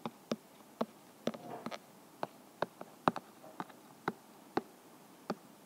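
Stylus tapping on an iPad's glass screen during handwriting: a string of short, sharp, irregular taps and clicks, fairly faint.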